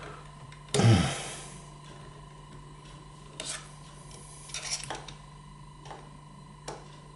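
Flat-head screwdriver tightening small screws in a slide projector's chassis: one loud scrape about a second in, then a few faint clicks and scrapes, over a low steady hum.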